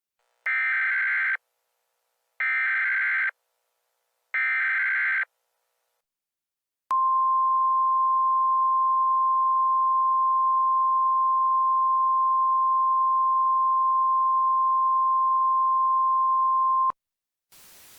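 Emergency Alert System header: three bursts of warbling data tones, about a second each and a second apart. After a short pause comes a single-pitch attention tone, held steady for about ten seconds and cut off sharply, and then a faint hiss near the end.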